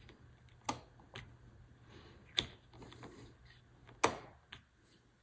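A few sharp, separate clicks from N-scale snap-switch solenoid actuators firing and throwing turnout points, worked through a hand-pressed control switch on a capacitive-discharge circuit. The clicks come about a second or more apart, the loudest about two and a half and four seconds in.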